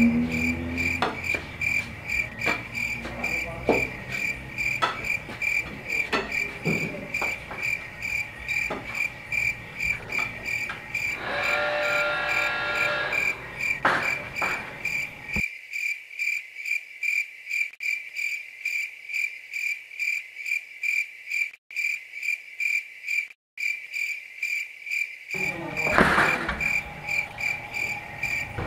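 Crickets chirping in a steady run of evenly spaced chirps. A few soft knocks are heard under them, and a louder bump comes near the end.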